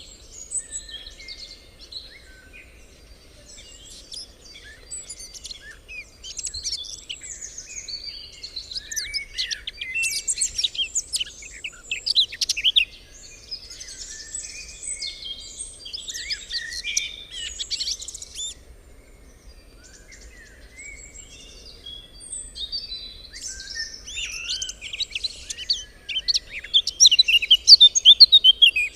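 Songbirds chirping and singing in quick overlapping phrases of high notes and trills, thinning out for a few seconds midway and busiest and loudest near the end.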